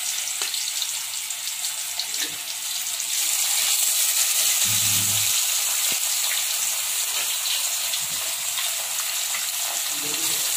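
Marinated fish pieces sizzling and crackling in hot oil in an aluminium kadai, a steady hiss full of small pops. It grows louder about three seconds in as the frying picks up.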